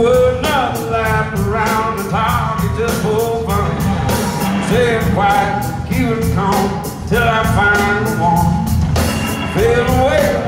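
A live rock band playing at full volume: vocals sung in phrases over guitar, bass and a steady, fast drum beat. The sound is heard from within an arena crowd.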